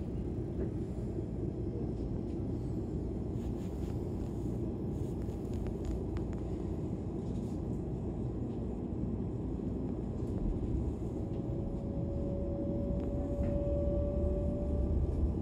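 Interior sound of a DB class 425 electric multiple unit on the move: a steady low rumble of the running gear, with a few faint clicks early on. About two-thirds of the way through, a thin whine joins in and rises slightly in pitch, the traction drive whine this class is nicknamed 'Quietschie' for.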